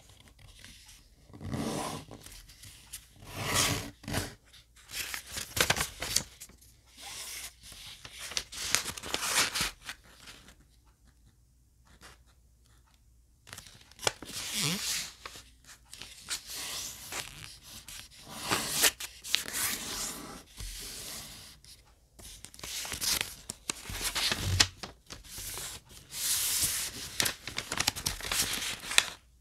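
Sheet of colored origami paper being folded and creased by hand, rustling and crinkling in irregular bursts as fingers press and slide along the folds, with a short pause about halfway through.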